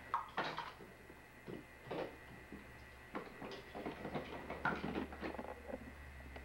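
Toys knocking and rattling against each other and the sides of a plastic storage bin as a toddler rummages through it: irregular clacks, several a second at times, over a steady low hum.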